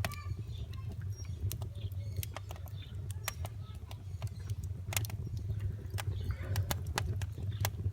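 Wood fire crackling in a wood-fired pizza oven: sharp, irregular pops and snaps over a steady low hum.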